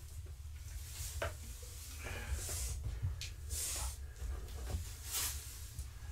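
Several short bursts of rustling and scraping as a bag is handled at the litter box, over a steady low hum.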